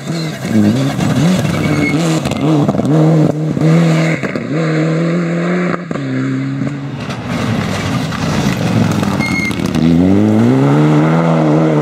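Rally car engines at full speed: the turbocharged four-cylinder of a Mitsubishi Lancer Evolution rising in pitch and dropping back again and again as it shifts up through the gears, then near the end another rally car's engine note rising as it approaches and holding high.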